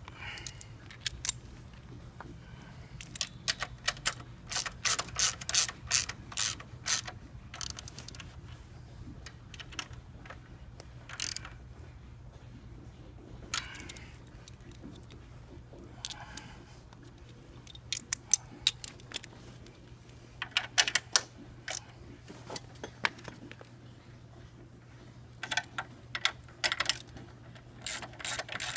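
Ratchet wrench clicking in bursts of rapid clicks, several times with pauses between, as crash-bar mounting bolts are tightened.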